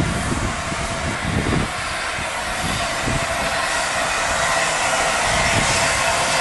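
Streamlined LNER A4 Pacific steam locomotive moving slowly tender-first, with steam hissing steadily from its open cylinder drain cocks and a few low, irregular chuffs. The sound grows louder as the engine draws near.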